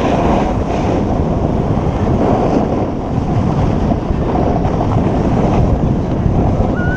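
Wind buffeting a GoPro's microphone on a fast run down a snow slope, with the hiss of sliding over the snow: a steady, loud rushing noise.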